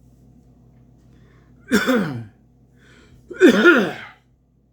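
A man coughing twice, hard, with voice in each cough; the second, about three and a half seconds in, is the louder. He is unwell.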